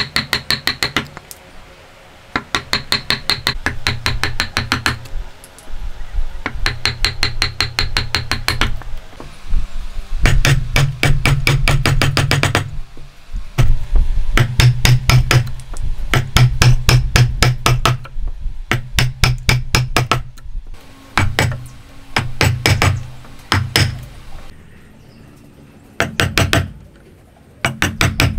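A steel chisel being struck rapidly to chop a mortise into a hardwood table leg, each blow a sharp knock with a dull thud beneath. The strikes come in quick runs of about ten a second, each run lasting one to three seconds, with short pauses between.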